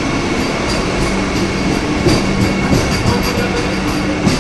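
Vande Bharat electric multiple-unit train rolling past along the platform: a steady rumble and hum with irregular clicks of the wheels over rail joints.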